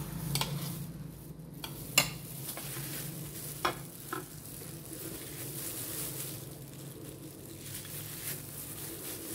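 Disposable plastic gloves rustling against a flour tortilla as a fajita is folded and rolled up, with a steady hiss and a few sharp clicks, the loudest about two seconds in.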